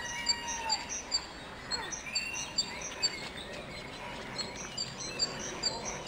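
Small songbirds chirping: a steady run of short, high-pitched notes repeating a few times a second, with a few lower calls mixed in.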